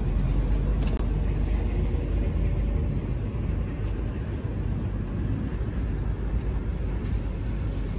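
Steady low outdoor rumble: wind buffeting the microphone mixed with the hum of distant road traffic.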